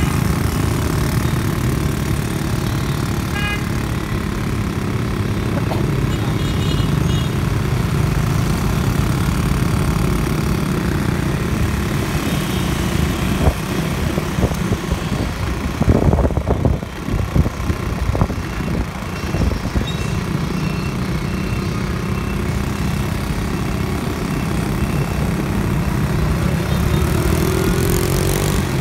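Steady engine and road noise of motorbikes and cars in city traffic, heard from a moving motorbike. From about 13 to 20 seconds in, wind buffets the microphone.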